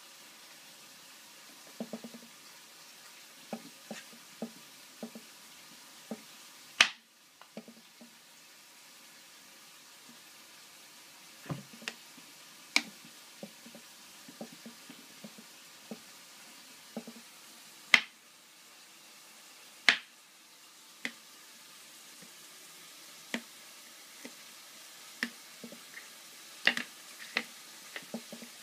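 A child's plastic knife chopping mushrooms on a thin plastic cutting board: irregular taps and clicks, some soft and dull, a few sharp loud clacks.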